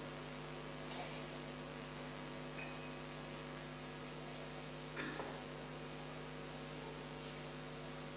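Steady electrical mains hum in the sound system, over a faint even background hiss. There is a soft knock about a second in and another about five seconds in.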